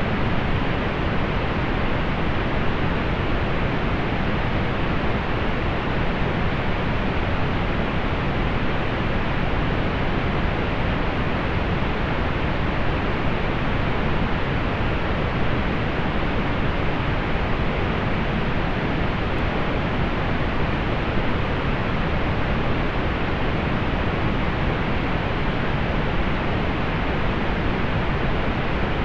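Steady synthetic pink noise: an even, unchanging hiss weighted toward the low end and rolled off in the highs.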